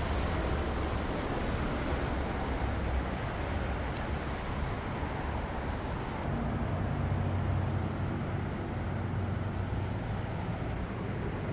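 Steady outdoor background noise with a low rumble. A faint low hum comes in about six seconds in.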